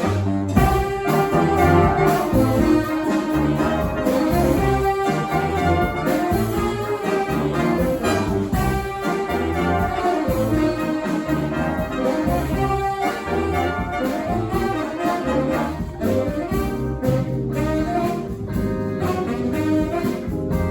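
Brass band playing a jazzy blues tune live, horns in harmony over a pulsing low bass line.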